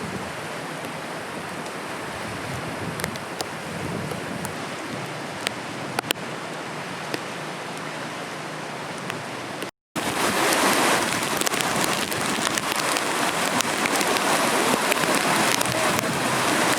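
Steady noise of heavy rain and storm water, with a few sharp drips in the first half. About ten seconds in the sound cuts out for a moment and comes back louder and fuller.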